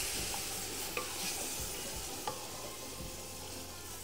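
A pot of frying tomato and spice base sizzling after a little water is poured in; the hiss slowly dies down, with a couple of light clinks against the pot.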